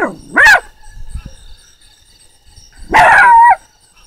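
Puppy barking twice: a short bark in the first half second, then a longer one about three seconds in. It is barking at a calling frog, with faint regular chirping underneath.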